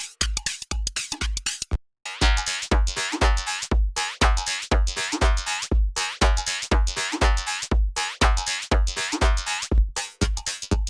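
Electronic drum-machine beat, kick about twice a second with hi-hats and a synth layer, run through an Arturia modulation effect plug-in. It cuts out briefly a little under two seconds in, then comes back fuller and brighter with a sweeping tone, and thins out again near the end.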